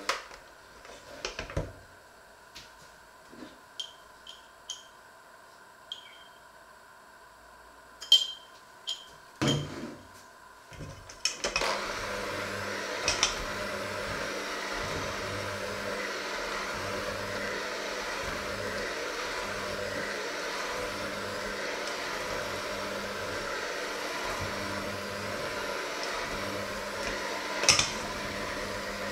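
Scattered light knocks and clinks. About a third of the way in, an electric hand mixer starts and runs steadily in a stainless steel bowl, with an occasional clink of the beaters against the bowl.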